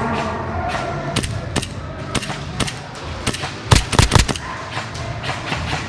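Airsoft guns firing: scattered single pops, then a quick loud string of shots about four seconds in.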